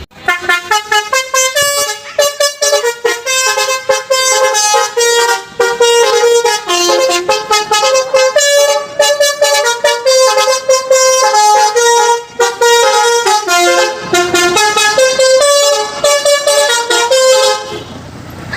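A tour bus's Basuri telolet musical horn playing a long, fast tune of short pitched notes, several notes a second, before it stops just short of the end.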